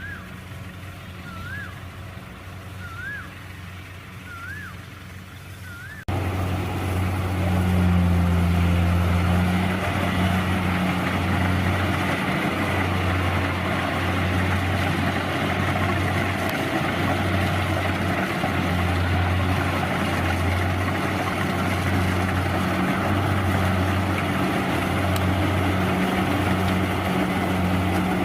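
Rice combine harvester's diesel engine running steadily, a low drone. About six seconds in, the sound jumps abruptly much louder and closer, with a dense rushing noise over the drone; before that a faint high chirp repeats about every second and a half.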